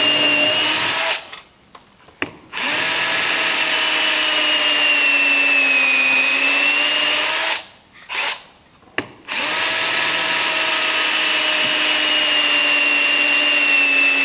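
Cordless drill boring lead holes through a wooden plank into the boat's frame and stem for wood screws: a steady motor whine in three runs separated by short pauses, with a brief start-stop in the second pause. The pitch dips slightly partway through the middle run as the bit loads up.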